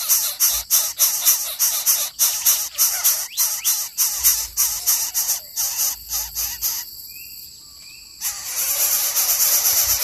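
Coucal nestlings calling in a fast rhythmic series of raspy, noisy pulses, several a second. The calls break off for about a second past the middle, then start again.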